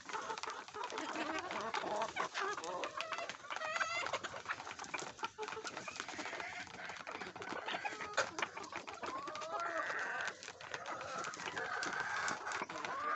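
A flock of hens clucking and giving short calls while they feed on soaked roti, with many short taps from their pecking throughout.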